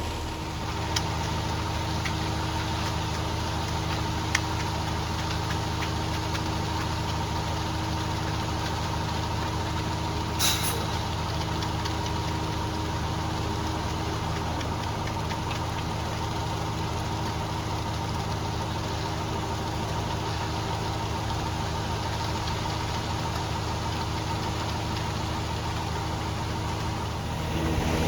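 Engine of concrete-pouring equipment running steadily at a constant speed, with a few faint clicks, a short hiss about ten seconds in and a knock at the very end.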